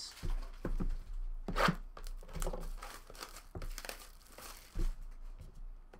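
Plastic shrink-wrap being torn and crumpled off a sealed box of trading cards, in irregular crackles, loudest about a second and a half in.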